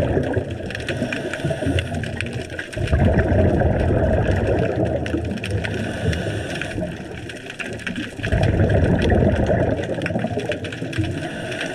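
Underwater sound: surges of rumbling bubble noise every few seconds, typical of a scuba diver's exhaled breath leaving the regulator, over a steady hiss with scattered faint clicks.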